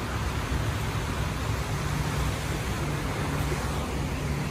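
Steady rushing of a rain-swollen creek's flowing water, with a low rumble underneath.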